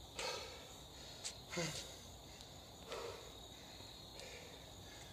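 Heavy breathing of a man exerting himself through burpees: a hard exhale every second and a half or so, one with a short grunt, over steady crickets chirping.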